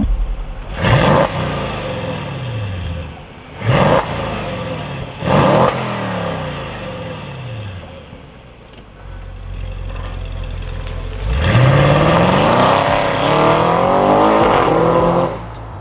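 A car engine revved: three short, loud blips, each falling away afterwards, then a longer rev that climbs, holds and drops off near the end.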